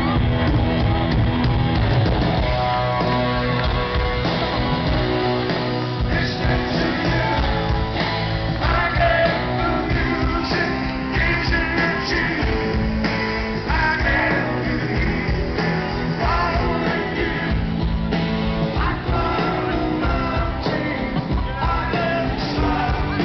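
Live rock band playing with a lead singer, guitar and drums, heard from within the crowd.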